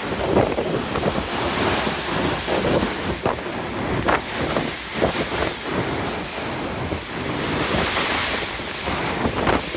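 Strong wind buffeting the microphone in uneven gusts, over the rushing wash of rough ocean waves.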